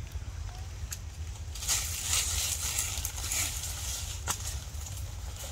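Dry leaf litter rustling and crunching as macaques scamper over it, loudest for about two seconds in the middle, with a few sharp clicks, over a steady low rumble.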